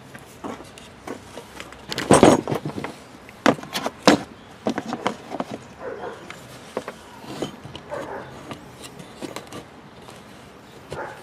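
Handling noise from a garden hose and its new fitting being moved and set in place: a rough rustle and clatter about two seconds in, sharp knocks a little later, then lighter scrapes and taps.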